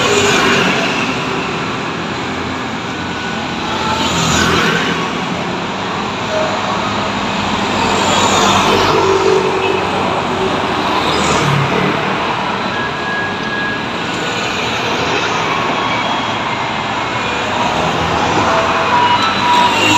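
Steady city street traffic at an intersection: motor scooters and cars passing one after another, with a heavier low rumble as a city bus goes by about halfway through.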